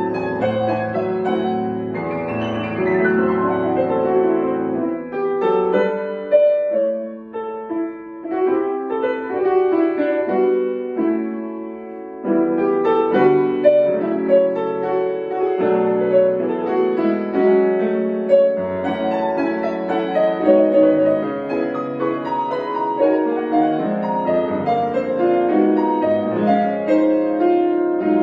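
Solo piano playing a classical piece, with a softer, sparser passage from about six seconds in and fuller, louder playing again from about twelve seconds in.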